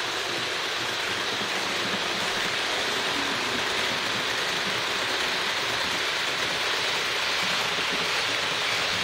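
Roco HO-scale ÖBB 1044 model electric locomotive running on Geoline track: a steady whirr of the motor and gears with the rattle of wheels on the rails.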